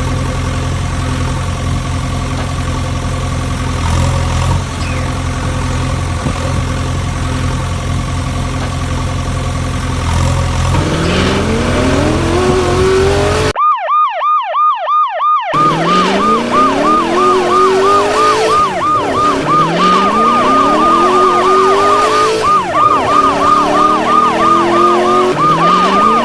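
A steady engine drone for the first half, then a rapid yelping siren from about halfway. The siren cycles about three times a second, with a rising engine-like tone sweeping up every few seconds alongside it.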